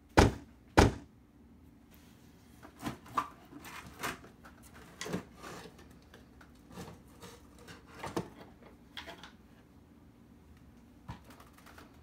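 Kustom Club Kasino amp head being opened: two sharp knocks at the start, then a run of lighter clunks and scrapes as the metal chassis is slid out of its cabinet.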